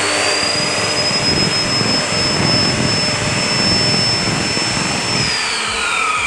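Bosch GCO 200/220 14-inch cut-off saw's motor running at full speed on a test run after a coil change, with a steady high whine. About five seconds in it is switched off and the whine falls in pitch as the motor and blade spin down.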